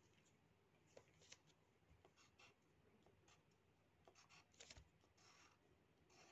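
Faint scratching of a pen on paper as numbers and lines are written, in a series of short strokes.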